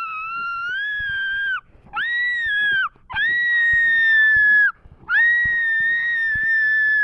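High-pitched screaming: four long, held screams with short breaks between them, each staying near one pitch.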